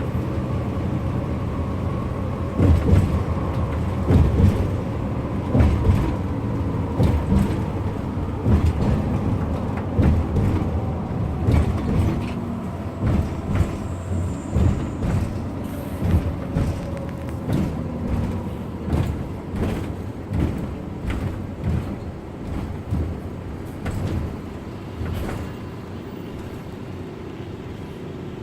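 A bus on the road, its engine running steadily under frequent irregular low thumps and jolts. The thumps ease off and grow lighter over the last few seconds.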